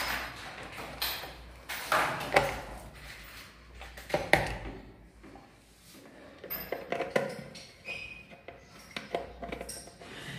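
Irregular clicks, taps and light metallic clinks from hands pushing and fixing wires in an MCB distribution board, making its neutral connections. The knocks come singly and then more closely together in the second half.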